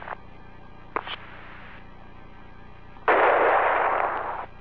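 Hiss on a radio intercom loop. A short click comes about a second in, then a burst of static starts about three seconds in and cuts off abruptly just before the end.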